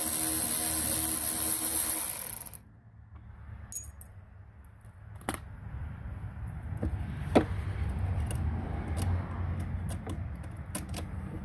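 Cordless electric ratchet running for about two and a half seconds, spinning loose the steering-cable bolt on a jet ski's jet pump nozzle, then cutting off. A few light metallic clicks follow as the loosened bolt and washer are handled.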